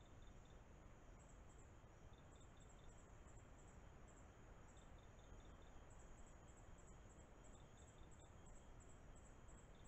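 Faint chirping of night insects: short high chirps come in small groups again and again, over the steady hiss of a trail camera's microphone.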